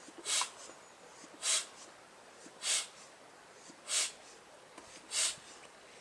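Air pump inflating a PVC boat: a short rush of air with each stroke, five strokes at an even pace of about one every 1.2 seconds.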